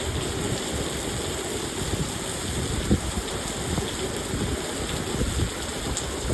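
Heavy rain pouring down: a dense, steady rush with close drops pattering on surfaces, one louder drop about three seconds in.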